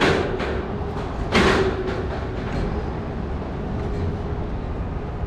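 Outdoor city ambience: a steady low rumble with a faint steady hum, and two brief louder rushes of noise about a second and a half apart near the start.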